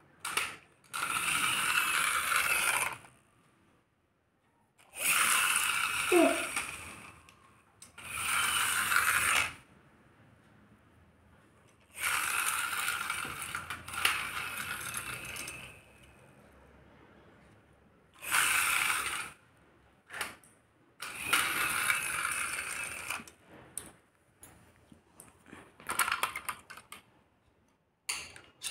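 Plastic toy JCB backhoe loader pushed along a tiled floor, its wheels and gears whirring in about seven separate runs of one to two seconds each. Near the end, scattered clicks and rattles as the toy is picked up and handled.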